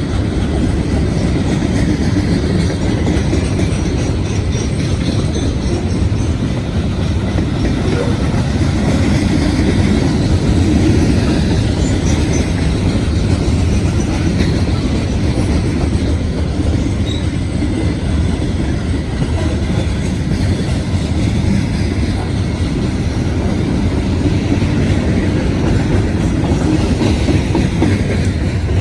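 Freight train rolling past close by: a steady, loud rumble of steel wheels on the rails that keeps going without a break.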